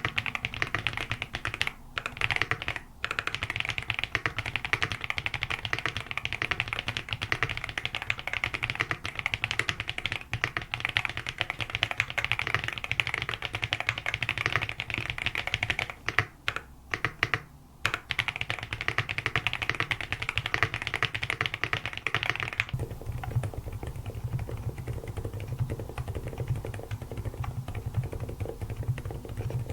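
Fast, continuous typing on a Cox CA75 full-aluminium mechanical keyboard, with a couple of brief pauses. About two-thirds of the way in, the keystrokes turn duller and deeper.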